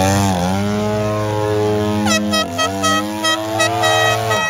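A motor runs with its pitch dipping and rising, then holding steady. From about two seconds in, a rapid warning beep sounds over it, about four beeps a second.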